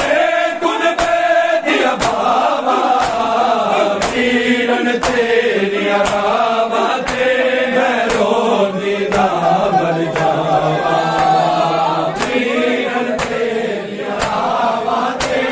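Men chanting a Punjabi noha together in long held lines, with sharp slaps of hands on bare chests (matam) beating time about once a second.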